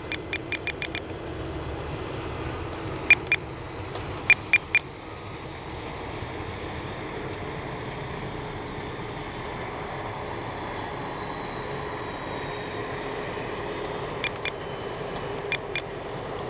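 Faint, steady drone of an electric RC airplane motor in flight over outdoor air noise, broken by several quick series of short, high beeps from the radio transmitter as its trim and switches are changed.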